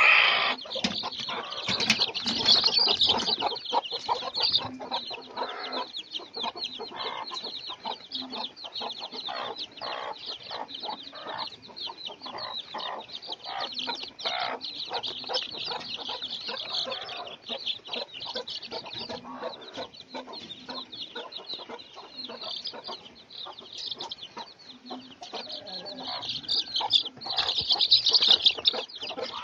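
A flock of young native and silkie chickens peeping and cheeping without a break, a stream of short high-pitched calls with some lower clucks mixed in, louder at the start and again near the end.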